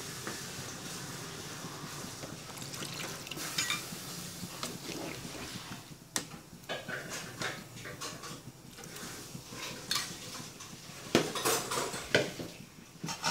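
Soup boiling in a metal pot with a steady bubbling hiss. From about halfway through, a ladle stirs it and knocks and scrapes against the pot, with scattered sharp clinks that are loudest near the end.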